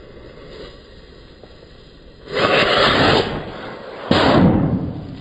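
Firecracker going off: a loud rush of noise about two seconds in, then a sharp bang about four seconds in that dies away over a second.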